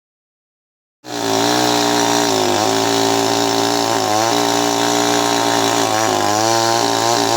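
Chainsaw running at high speed, cutting in abruptly about a second in, its pitch dipping briefly a few times.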